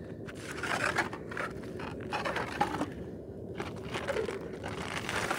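Hand-cranked spiral ice auger scraping and crunching through ice, coming in uneven surges.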